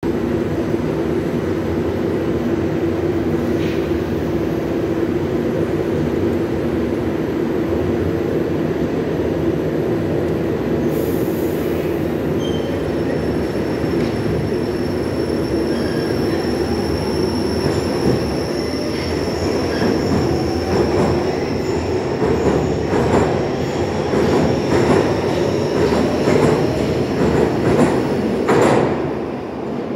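An 81-556/557/558 "NeVa" metro train standing at the platform with its equipment humming, then pulling away. As it accelerates, a motor whine rises in pitch and the wheels click ever faster over rail joints, getting louder, before the sound drops off as the train enters the tunnel near the end.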